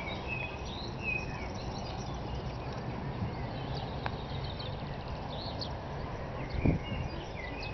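Outdoor lakeside ambience: a steady background hiss and rumble with small birds chirping now and then, and a single brief knock about two-thirds of the way through.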